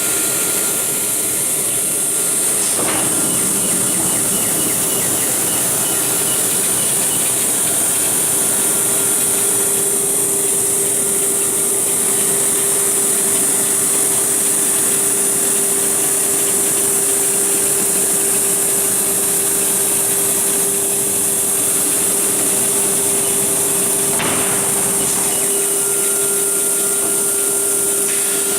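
Nesting CNC router cutting wood-based furniture panels, its spindle running with a steady whine and hiss over the dust-extraction noise. The cutting sound shifts briefly about 3 seconds in and again near the end.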